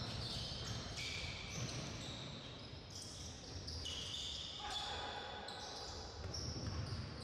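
Basketball game sounds on a gym court: sneakers squeaking sharply and repeatedly on the floor, with the ball thudding as it is dribbled.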